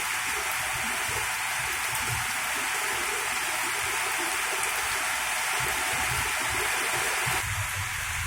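Heavy rain pouring steadily onto ornamental garden plants.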